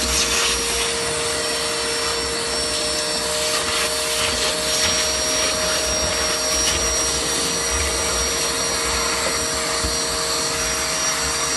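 CNC router carving wood, its spindle running steadily: a constant whine over an even hiss.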